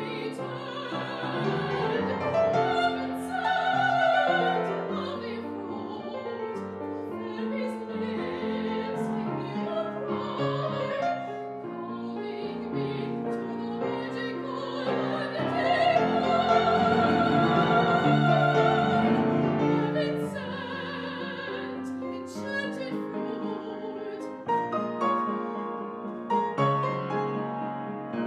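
A woman singing in operatic style with vibrato, accompanied by piano; the voice swells to its loudest in a long held passage a little past halfway.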